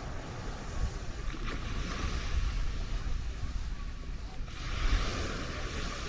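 Small waves washing onto a sandy shore, with wind rumbling on the microphone; the wash of surf grows louder about four and a half seconds in.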